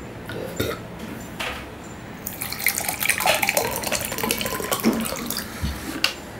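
Water poured from a plastic jug into a drinking glass, splashing for about three seconds, with a knock near the end.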